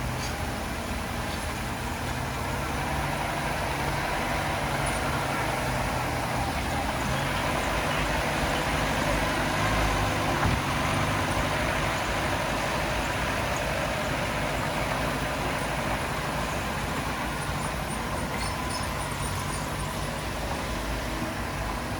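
Heavy diesel engine of earthmoving equipment running steadily, growing louder for a few seconds around the middle.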